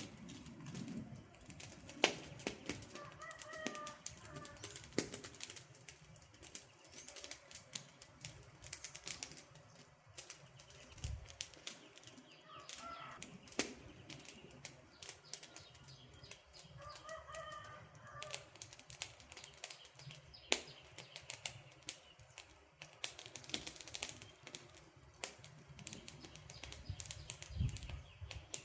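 Wood campfire crackling, with irregular sharp pops and snaps over a soft hiss. A bird calls briefly three times in the background.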